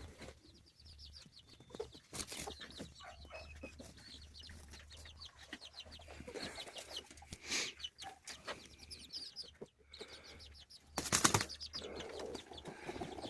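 Chickens clucking and trilling softly while they shuffle and settle on a roost, with a short bout of wing flapping about eleven seconds in.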